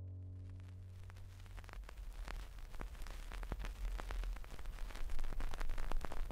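Crackling and popping surface noise over a low hum, like an old-film or vinyl crackle effect, getting denser and louder as it goes. A held low note left over from the closing music fades out in the first couple of seconds.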